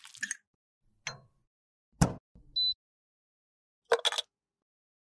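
Short, separate handling sounds with silence between them: a metal spatula scraping lipstick in a small plastic cup, then a knock and a loud thud about two seconds in, with a brief high tone just after. Near the end comes a short clatter and rustle as waste drops into a plastic-bag-lined bin.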